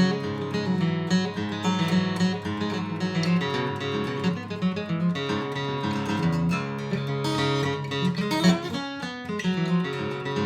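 Larrivee L-02 acoustic guitar being played, a continuous run of plucked and strummed notes and chords, with a louder accent about eight and a half seconds in.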